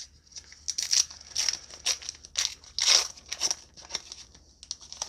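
Foil wrapper of a Star Wars Unlimited booster pack crinkling and tearing as the pack is opened, in a string of irregular short rustles.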